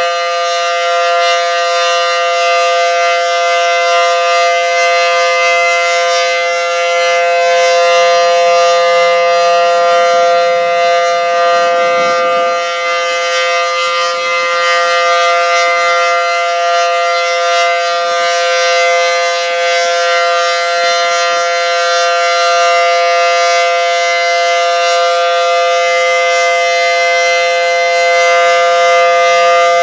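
Federal Sign and Signal SD10 outdoor warning siren sounding a loud, steady chord of two held tones during its monthly test.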